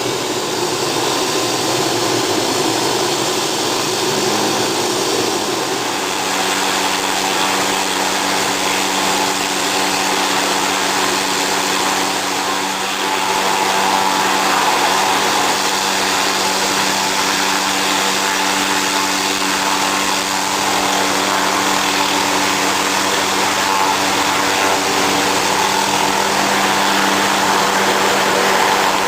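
Robinson helicopter's piston engine and rotor running steadily at flight power, with a steady humming tone that settles in about six seconds in.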